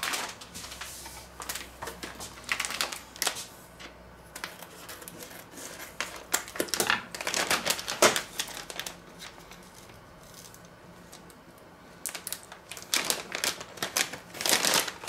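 Plastic bag of grated pizza cheese crinkling and clicking as it is handled and opened, in bursts, with a quieter stretch about two-thirds of the way through.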